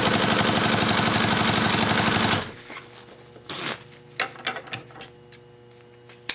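Industrial sewing machine stitching zipper tape at a fast, steady rate, stopping about two and a half seconds in. Scattered handling clicks and rustles follow, ending in a sharp snip of scissors cutting the zipper.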